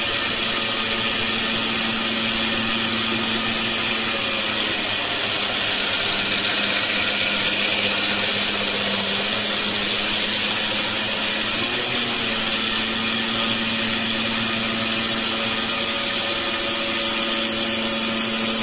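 Belt grinder running steadily while a steel knife blade is ground against its abrasive belt, putting the bevel on the blade.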